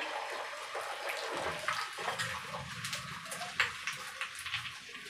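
Beaten egg sizzling in hot oil on a flat tawa: a steady frying hiss with many small crackles and pops.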